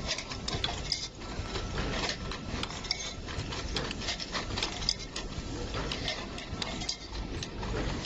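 A 16-station automatic aluminum tube filling and crimping machine running, with a dense, irregular clatter of mechanical clicks and knocks.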